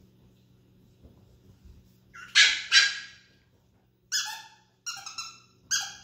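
Chihuahua puppies barking in play: two loud barks a little after two seconds in, then a quick run of short, high-pitched yips near the end.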